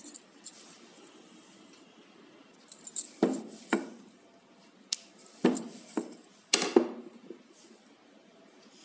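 Wooden rolling pin rolling out dough on a marble rolling board, with a handful of short knocks and clatters as the pin strikes the stone, clustered from about three to seven seconds in.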